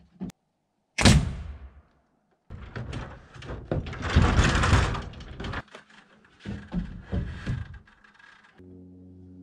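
A cordless nail gun fires once with a sharp bang about a second in. Then comes a few seconds of scraping and rattling as a stepladder and lumber are moved, followed by a few knocks of wood. Background music starts near the end.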